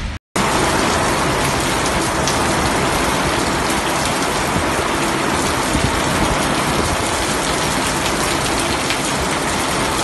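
Heavy rain pouring down onto a paved street: a dense, steady hiss of drops hitting the ground.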